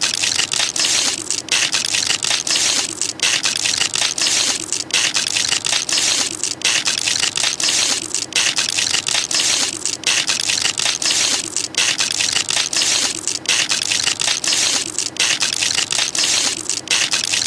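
'Gorillize' transformation sound effect: a dense, loud crunching and crackling noise that dips briefly about every second and a half to two seconds and then surges again.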